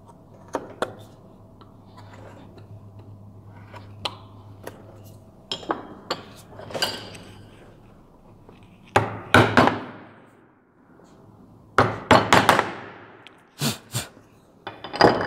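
A mallet striking the handle of a wood-carving gouge, cutting into a wooden moulding: a few light clicks of hand-pushed cuts in the first half, then louder groups of sharp knocks from about nine seconds in.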